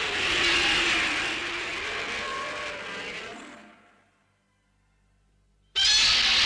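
Film sound effect: a loud rushing noise with a wavering tone that fades away about four seconds in, a moment of near silence, then another rushing noise that cuts in suddenly near the end.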